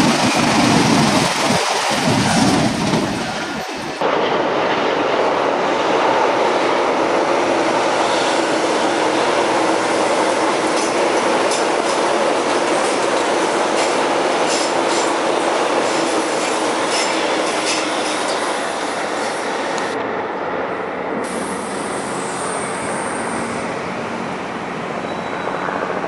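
After a short opening sound, an Alstom metro train runs along the track with a steady rumble and a run of wheel clicks over rail joints. Near the end, thin high wheel squeal sounds as a train moves off.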